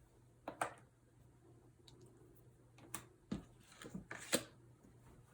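Scattered light clicks and taps of a dry-erase marker against a small whiteboard as it is handled, two close together about half a second in and a cluster of several more in the second half, over a faint low hum.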